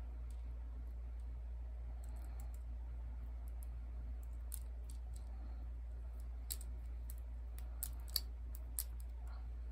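Small plastic dolls handled on a metal tray: scattered light clicks and taps, several sharper ones in a cluster near the end, over a steady low hum.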